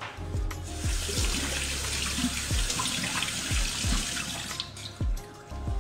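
Kitchen tap running into a sink: a steady rush of water that starts just under a second in and stops about four seconds later.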